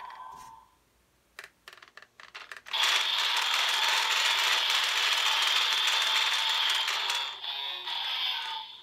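DX Evol Driver toy transformation belt having its side crank handle turned: a few separate clicks, then about four seconds of steady ratcheting, mixed with the belt's electronic sound effects from its built-in speaker, before it trails off near the end.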